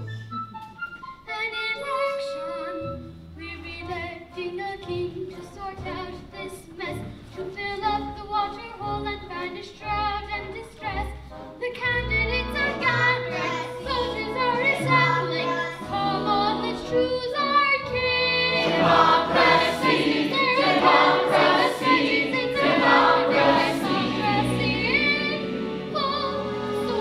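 Opera chorus singing with accompaniment, growing fuller and louder about halfway through.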